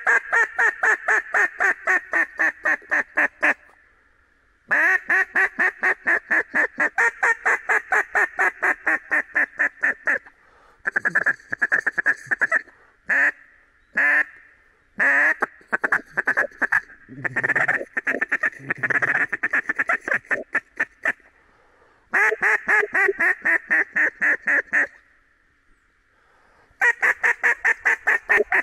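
Old cut-down Olt D-2 duck call blown hard in loud runs of rapid, barking mallard-hen quacks. Several fast runs are broken by short pauses, with a choppier, more broken stretch of notes in the middle.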